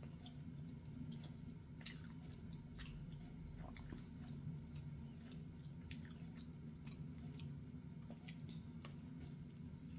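A person chewing and biting pizza close to the microphone, with scattered small wet mouth clicks, over a steady low hum.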